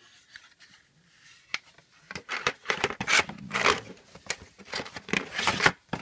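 Cardboard-and-plastic packaging of an SSD being handled: a single click about one and a half seconds in, then a few seconds of irregular rustling and crinkling bursts as the box is searched.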